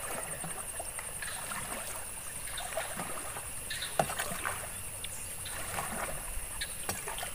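A flat kitchen spatula used as a paddle dipping and splashing in pond water as a plastic-bottle raft is paddled, with irregular soft splashes and a couple of sharp knocks, about four and seven seconds in.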